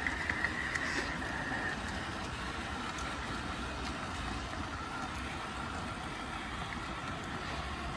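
G gauge model train running on its track, heard from on board: a steady electric motor whine over the rumble of the wheels, with a few light clicks.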